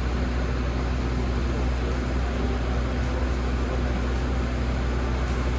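Passenger boat's engine running steadily under way: a constant low drone with an even rush of noise over it.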